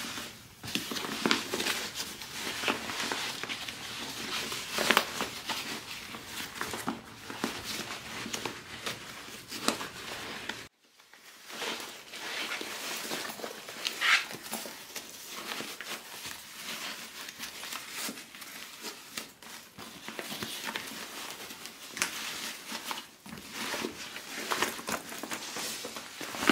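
Vinyl and waterproof canvas crinkling and rustling as a sewn bag is pulled right side out through its lining. The sound stops briefly about a third of the way through, then carries on.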